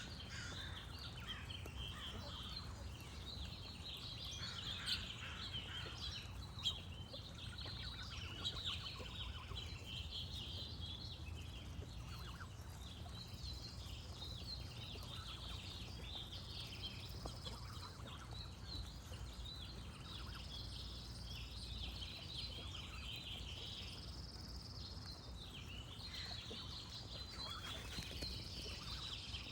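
Birds calling: a constant chorus of songbird chirps and trills, with a few louder, sharper calls between about five and nine seconds in, over a steady low rumble.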